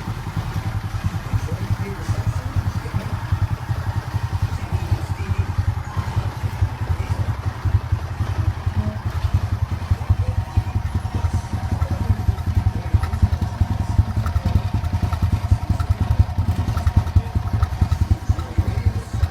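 Honda XRM125 Trinity's single-cylinder four-stroke engine idling steadily through its stock exhaust.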